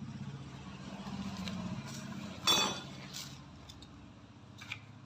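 Steady low mechanical whirring that swells and then slowly fades, from work on a scooter's CVT drive, with a sharp metallic clink about two and a half seconds in and a few lighter ticks later.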